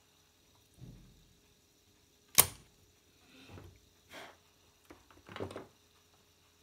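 Tools and a circuit board being handled on a wooden workbench: one sharp click about two and a half seconds in, with several softer knocks and rustles around it.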